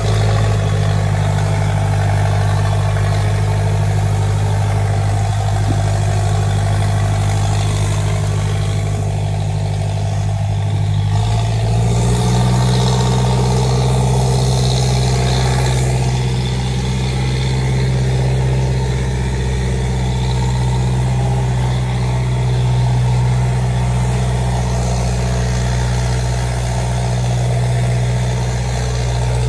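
Tractor's diesel engine running steadily, a low even drone. About eleven seconds in, the engine speed steps up a little and then holds.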